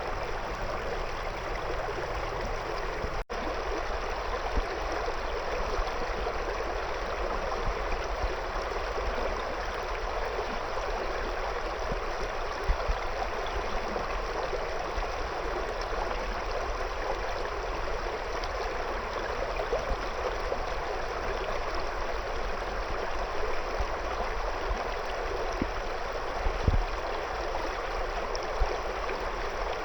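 Shallow river flowing over and around stones, a steady, even rush of burbling water.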